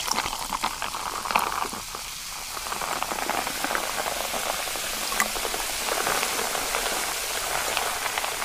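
Coca-Cola poured from a plastic bottle over ice in a glass mug, fizzing steadily as it foams up. A few sharp clinks of ice come in the first couple of seconds.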